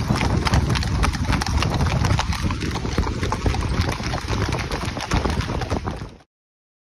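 Hooves of a horse in harness trotting on a paved road: a quick, steady clip-clop over a low rumble. The sound cuts off suddenly shortly before the end.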